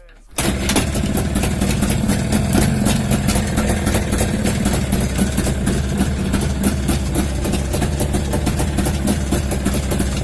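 IZh Jupiter 5's two-cylinder two-stroke engine running at idle from cold, with a rapid, even firing rattle. It comes in abruptly about half a second in.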